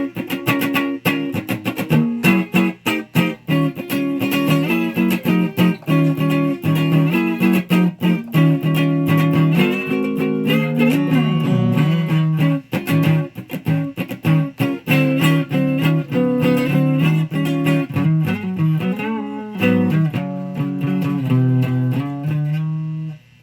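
Electric guitar played through an amp: quick single-note runs with a few string bends, stopping abruptly just before the end.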